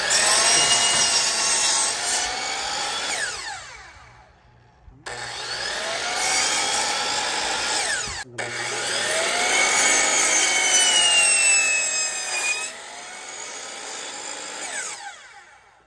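DeWalt sliding miter saw running with its motor whining as the blade cuts through wooden boards, several cuts in a row. After a cut the sound dies away in a falling whine as the blade spins down, once a few seconds in and again near the end.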